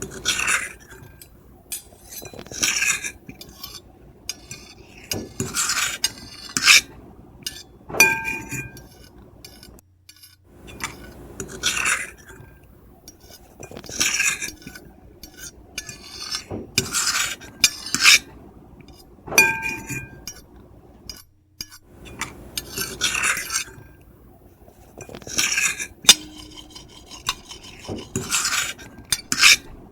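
Metal fork and knife scraping across a plate in repeated short strokes, about one a second, with now and then a sharper clink that leaves the plate ringing briefly.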